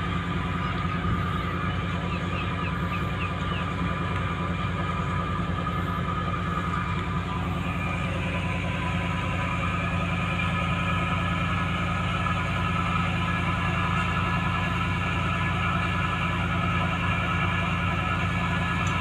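Steady machinery drone from a moored fishing boat's engine: a low hum with a higher whine laid over it, the whine growing a little stronger about halfway through.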